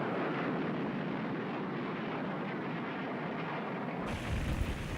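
Steady rushing noise of jet aircraft. About four seconds in it cuts abruptly to a deeper rumble.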